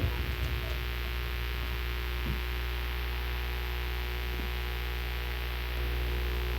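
Steady low electrical hum with a buzzing layer of higher tones, stepping up slightly in loudness near the end.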